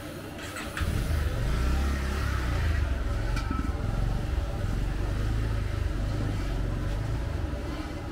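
A low, steady engine-like rumble that swells about a second in and then runs on evenly, with a few light clicks over a faint hiss.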